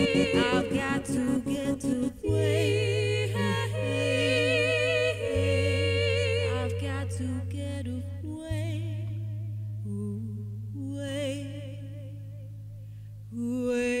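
Live electro-funk music: a woman's voice singing with vibrato, layered with other looped voices, over long held electric bass notes that change every few seconds. A choppy rhythmic vocal pattern opens it, the music slowly quietens, and a louder sung phrase comes in near the end.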